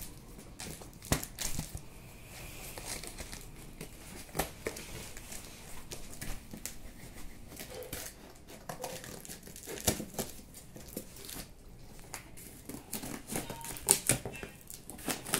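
Scissors cutting through plastic packing tape on a cardboard box, with the tape crinkling and the box being handled: irregular crinkles, rustles and sharp clicks, loudest near the end.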